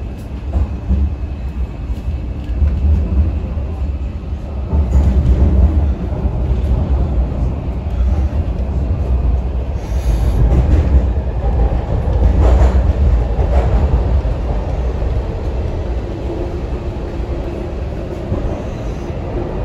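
MTR Kwun Tong Line C-train heard from inside a passenger car while running: a steady heavy low rumble of wheels on rail and running gear under the floor. It swells louder a few times as the train goes.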